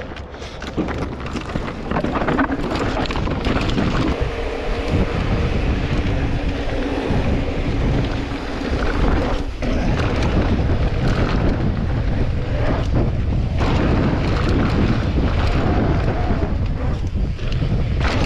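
Wind buffeting the action camera's microphone over tyres rolling on a dry dirt trail, with frequent knocks and rattles from a Specialized Turbo Levo Comp Alloy e-mountain bike on a fast descent. It gets louder about a second in as speed picks up.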